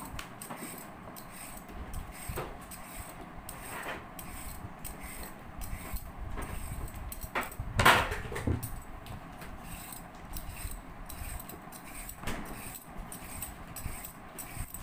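Kitchen things being handled: scattered knocks and clinks, with one louder knock a little past the middle.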